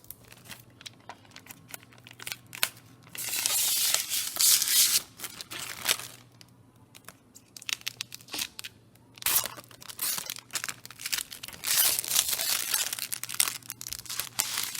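Protective plastic film being peeled off a PC case's glass panel. It makes crackling, tearing rips in three longer spells, with small clicks and crinkles between them.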